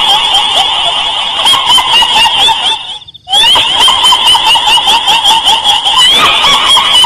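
Rapid, bird-like chattering call repeated without pause, presented as the laugh of a pocong ghost. It breaks off briefly about three seconds in, then resumes.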